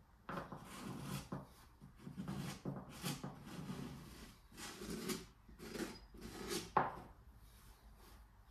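Hand sanding of filled holes on wooden furniture: a series of rasping back-and-forth strokes of sandpaper on wood and filler, stopping about seven seconds in.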